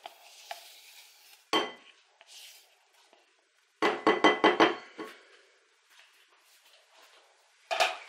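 Kitchen utensils knocking against a glass mixing bowl: one clink about a second and a half in, then a quick run of taps around four seconds as a silicone spatula scrapes melted chocolate into the bowl, and another knock near the end.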